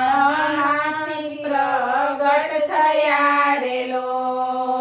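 Three women singing a Gujarati devotional bhajan together, drawing each syllable out into long held notes that glide from one pitch to the next.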